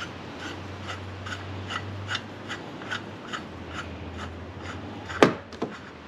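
Light, evenly spaced metal clicking, about two to three a second, as the clutch puller is worked out of the snowmobile's primary drive clutch by hand. One sharp knock about five seconds in.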